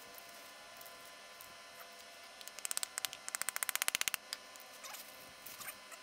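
Wooden dowel tamping fill down inside a small PVC rocket casing: a quick run of sharp taps, about ten a second for a second and a half, starting about two and a half seconds in, over a faint steady hum.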